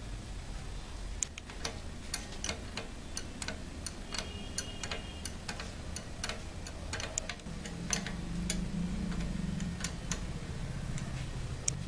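Irregular light metallic clicks and ticks as bolts, nuts and a metal clamp plate are handled and tightened by hand around the neck of a large glass flask.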